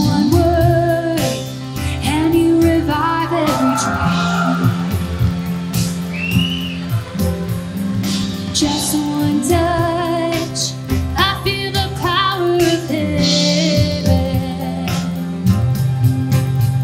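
Live worship music: a band playing a slow song with singing.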